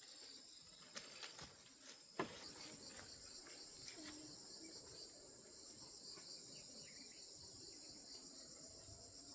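Insects chirring steadily in a high, thin band, with a few light clicks about a second in and one sharp knock a little after two seconds.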